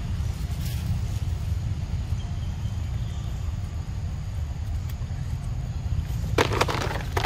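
Steady low rumble of wind buffeting the microphone, with a short cluster of crackling rustles about six seconds in.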